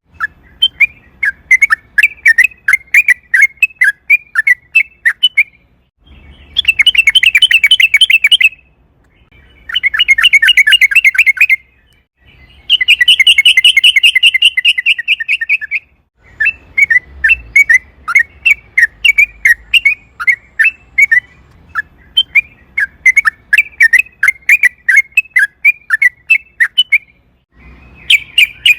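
Yellow-vented bulbul (trucukan) singing. Its loud bubbly chirping phrases alternate with long, rapid rolling trills: three in the middle and another beginning near the end.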